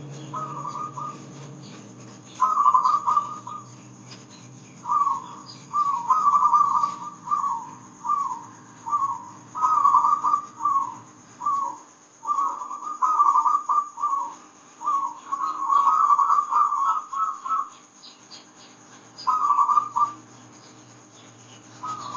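Zebra dove (perkutut) singing: phrases of quick, rippling cooing notes, each phrase lasting from half a second to about two seconds, separated by short pauses.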